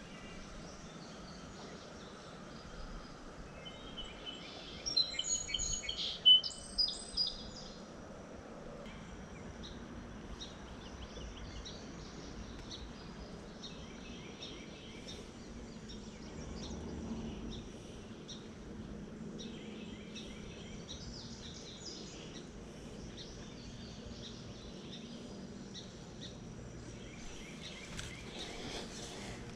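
Wild birds singing and chirping, with one bird's loud run of clear whistled notes about five seconds in, over a faint steady outdoor background.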